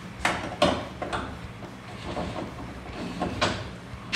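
Four short clicks and knocks of hardware and plastic being worked by hand at a Can-Am Maverick X3's seat mounts, as the seat is unfastened: two close together near the start, one about a second in, and a louder one near the end.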